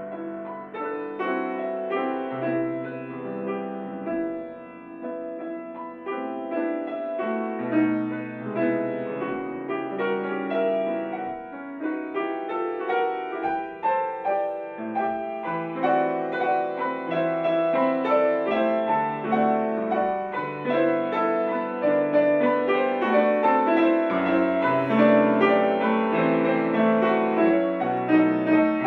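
Grand piano played solo: a dense passage of many overlapping notes over low bass notes, growing louder toward the end.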